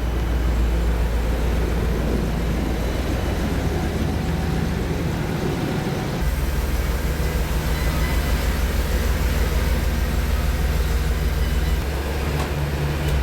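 A motor running steadily, with a strong low hum that shifts about six seconds in and again near the end.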